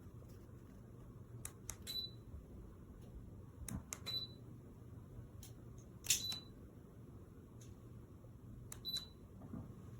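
Four sharp clicks a couple of seconds apart, each followed by a short high beep: remote-control button presses acknowledged by a ceiling fan's receiver.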